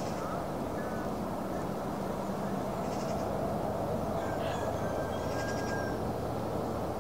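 Steady wind rumbling across the microphone, with a few faint short high tones over it.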